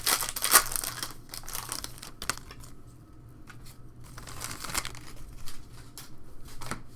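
Trading-card pack wrappers being torn open and crinkled by hand. The crackly rustling is loudest in the first second and again around four to five seconds in.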